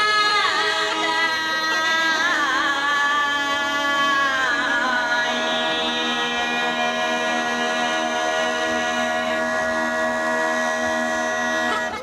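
A woman singing a Bulgarian folk song in full voice over kaba gaida bagpipes playing a drone and melody. Her voice makes ornamented, wavering turns in the first few seconds, then the music settles into a long held chord that cuts off just before the end.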